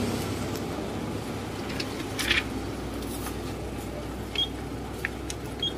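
Canon photocopier running with a steady low hum, a few faint clicks, and two short high beeps in the last couple of seconds as keys on its control panel are pressed.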